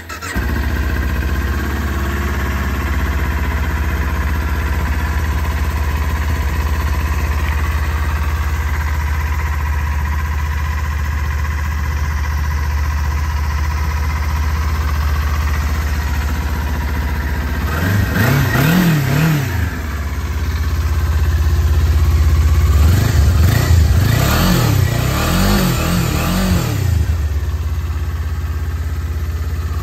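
2018 Kawasaki Ninja 400's parallel-twin engine starting and settling into a steady idle, a cold start after sitting through a long winter. The throttle is blipped a few times about two-thirds of the way through, then revved again in a longer series of rises and falls shortly after.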